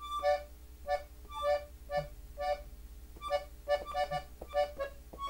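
Button accordion tuned in E, treble side alone, played slowly one note at a time in the key of D: about a dozen short, separate notes walking down the buttons, spaced wider at first and coming quicker in the second half.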